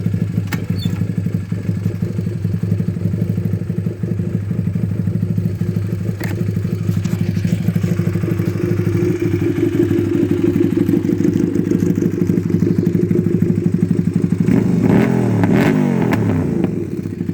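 Honda CB450 four-stroke parallel-twin motorcycle engine running steadily, with a couple of quick revs up and back down near the end.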